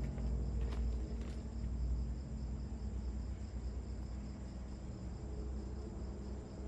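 Tropical forest insects (crickets) chirping in a steady, evenly pulsing high trill, over a low rumble, with a couple of soft knocks about a second in.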